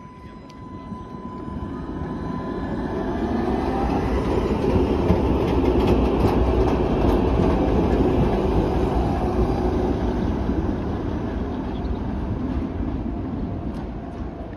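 KCSV7 articulated tram pulling away from a stop, its traction motor whine rising in pitch as it gathers speed and its wheels running on the rails. The sound grows louder as it passes close by about halfway through, then slowly fades as it moves off round a curve.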